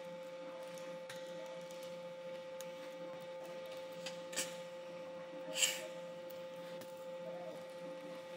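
Faint clicks of typing on a computer keyboard over a steady high-pitched electrical hum, with two short hissy sounds about four and a half seconds in and just before six seconds.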